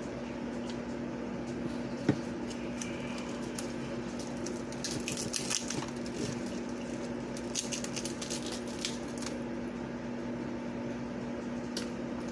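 Crisp fried seafood batter and shells crackling as pieces are pulled apart by hand and chewed. The crackling comes in short clusters around the middle, with one sharp click about two seconds in, over the steady hum of an electric fan.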